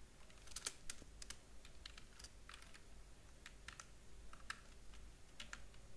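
Faint typing on a computer keyboard: irregular single keystrokes, with a quick run of several about a second in.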